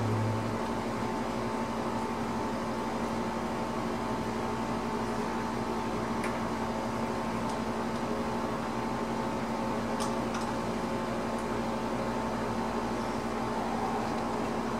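A steady electric hum with a few fixed tones, like a running fan or other appliance. A few faint light clicks of hand tools come through while a valve's lash is being set.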